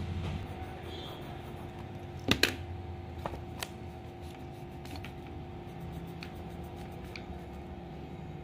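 A blue eraser being rubbed over a notebook page, a soft scratchy rubbing and paper handling, with a few sharp taps and clicks, the loudest a quick pair about two seconds in.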